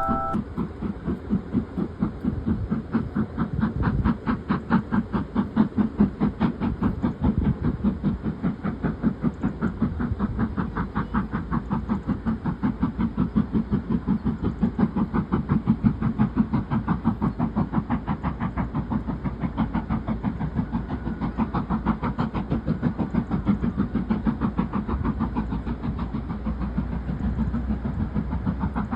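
Steam locomotive working steadily, its exhaust chuffing in an even beat of about three to four puffs a second, with steam hiss.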